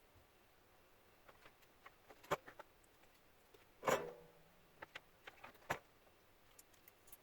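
Scattered light clicks and taps of small parts and tools being handled on a work surface, with one louder knock that rings briefly about four seconds in.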